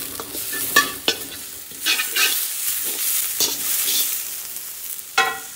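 Diced onion and carrot sizzling in a wok with little oil, while a metal spatula scrapes and clacks against the pan in several separate strokes, the sharpest one near the end.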